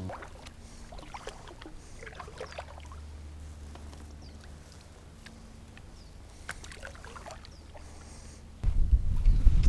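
Kayak on the water: soft, scattered little drips and splashes over a low steady hum. Near the end a sudden loud low rumble sets in.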